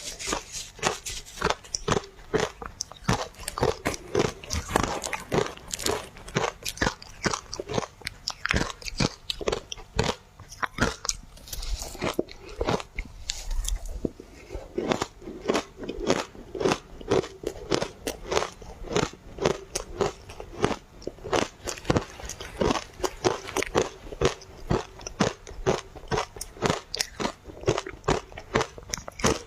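Ice dusted with matcha powder being bitten and chewed close to the microphone: a dense, continuous run of crunching and crackling, several crunches a second.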